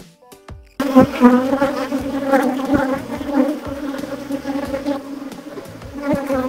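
Faint background music for under a second, then a sudden loud, dense buzzing of a large mass of honeybees at an open hive, with a few sharp knocks from work on the wooden hive box.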